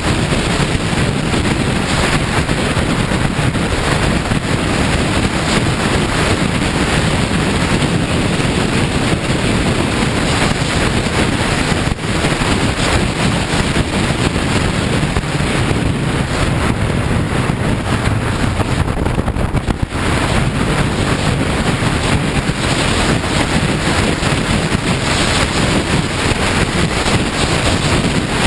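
Steady wind rush on the camera microphone of a KTM 690 Duke R under way on a gravel road, mixed with the motorcycle's single-cylinder engine and tyre noise. It eases briefly about two-thirds of the way through.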